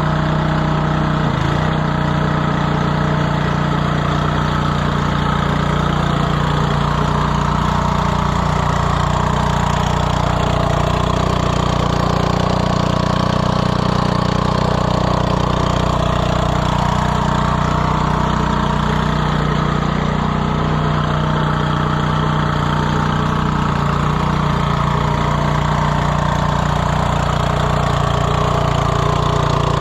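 A 1979 Montgomery Ward (Gilson-built) snowblower's 3.5 hp Briggs & Stratton single-cylinder engine running steadily at an even speed.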